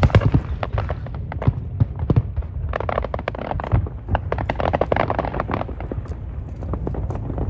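Aerial fireworks display: a rapid string of sharp bursts and crackles over a continuous low rumble, thickening into dense crackling about three seconds in and again around five seconds in.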